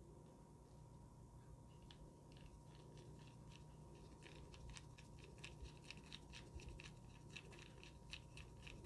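Faint small metallic clicks and scratches of a small screwdriver tightening the set screw of a banana plug on speaker cable. The clicks start about two seconds in and come faster from about the middle.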